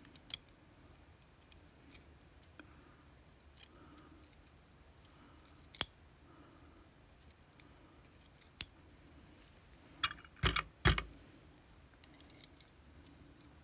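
Small sharp metal clicks and scrapes of tweezers working a stuck pin out of a Vachette V-DIS+ lock cylinder's pin chamber, sparse at first, with a louder cluster of clicks and a knock about ten seconds in.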